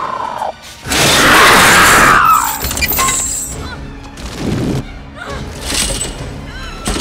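Film sound effects of an explosion: a loud rush of blast and fire with crashing, shattering debris lasting about a second and a half, then scattered knocks and clatter, all under a dramatic orchestral score.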